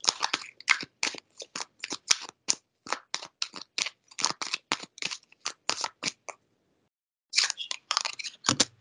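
Tarot cards being shuffled by hand: a rapid, uneven run of sharp papery clicks, several a second, breaking off for about a second two-thirds of the way through before starting again.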